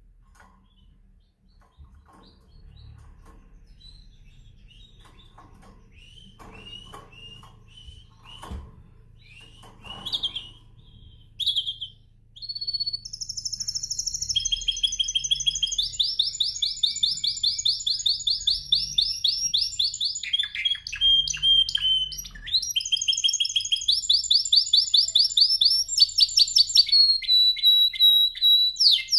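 Domestic canary singing. For the first half there are only a few scattered chirps and short calls, then about halfway in it breaks into loud continuous song of fast trills, each roll of rapid repeated notes switching to a new pitch every second or two.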